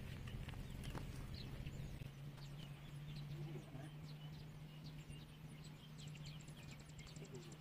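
Faint outdoor ambience: scattered short high chirps of birds over a low steady hum. Near the end a fast, even high ticking trill begins.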